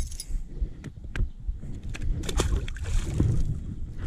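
Water sloshing and splashing beside a small fishing boat, with a few sharp clicks and knocks of handling, over a steady low rumble.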